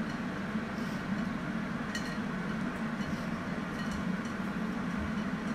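A few faint clicks and taps as a soft-boiled egg's shell is peeled by hand in a glass bowl of water, the shell touching the glass, over a steady low hum.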